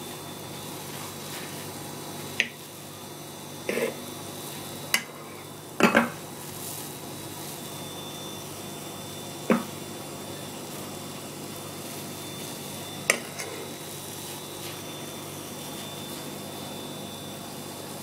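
A metal spoon stirring thick soap foam in a pot, clinking against the pot's side a handful of times at irregular intervals over a steady low hiss.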